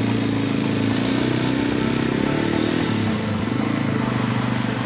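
Motorcycle engine pulling away with two riders aboard: its pitch climbs for a couple of seconds, drops about three seconds in, then holds steady.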